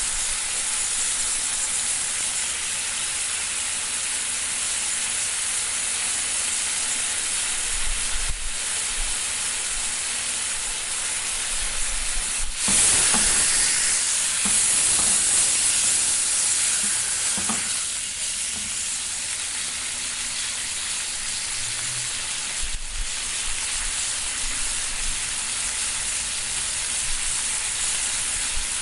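Steak sizzling in a frying pan: a steady, bright hiss of frying. About halfway through the sizzle suddenly gets louder for five or six seconds, then settles back, with a couple of light knocks.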